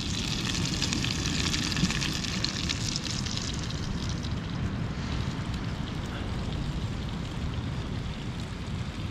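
Surf perch fillet sizzling in butter in a pan, a crackling hiss that is strongest in the first few seconds, over a steady low rumble of wind and surf.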